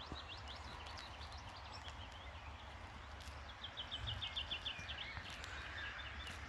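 Small birds singing, with short high chirps and, in the middle, a quick even run of about eight notes a second, over a faint steady background hiss and rumble.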